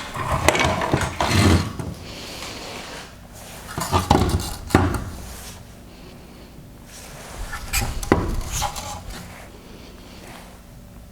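Removed LED headlight projector parts of hard plastic and metal being handled and set down on a bench: three bouts of clicking, knocking and rubbing, each with one sharp knock, about half a second, five seconds and eight seconds in.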